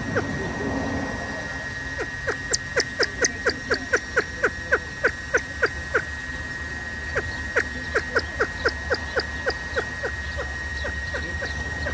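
Kalij pheasant giving a rapid series of short clucking calls, about four a second, in runs that pause near the start and again about halfway. A steady high thin tone runs beneath.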